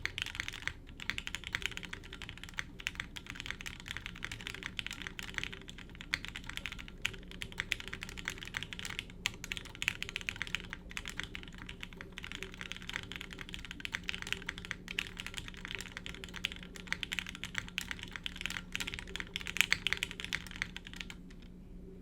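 Continuous fast typing on a Kage mechanical keyboard with lubed Gateron Lion linear switches, a polycarbonate plate and GMK keycaps: a dense stream of keystrokes that stops about a second before the end.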